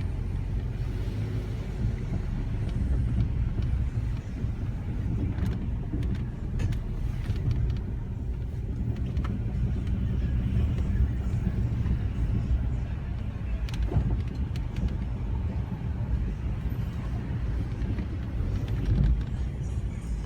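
Nissan Altima driving, a steady low road and engine rumble with a few faint clicks.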